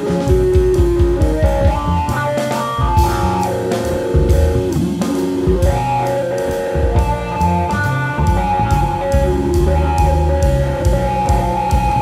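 Live instrumental trio playing: plucked acoustic upright bass, keyboards and a drum kit, with cymbal strokes keeping a steady pulse.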